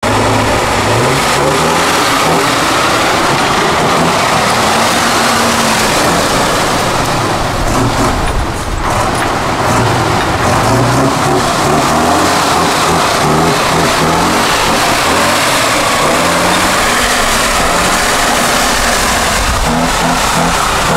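Tatra 813 8x8 truck's air-cooled V12 diesel engine running loud under heavy load, revving up and down again and again as the truck works through deep mud.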